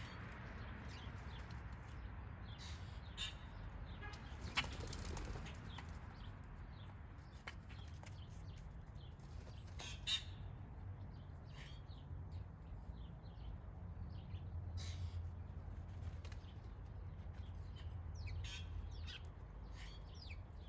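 Wild birds at a backyard feeder: wings flapping as they come and go, with a louder flurry about five seconds in, and scattered short chirps and calls, over a low steady rumble.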